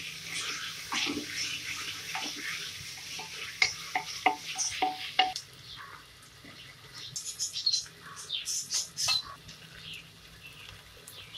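Wooden spatula stirring and scraping vegetables frying in an aluminium pressure cooker, with a steady sizzle and many clicks against the pot for about five seconds. After that it goes quieter: a softer sizzle with a few light clicks and taps.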